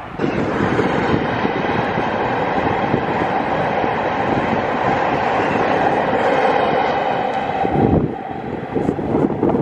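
ICE high-speed train passing at speed: a steady rushing of wheels on rail and air that starts suddenly and stops abruptly about eight seconds in, leaving wind buffeting the microphone.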